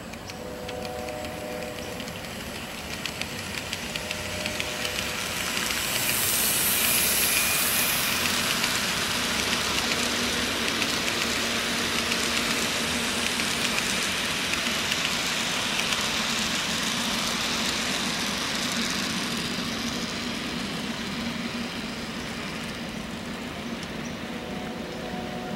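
N scale model train rolling past on the track, a steady whirring rattle with fast fine clicking from the wheels, growing louder over the first several seconds as it comes close and then holding steady as the cars go by.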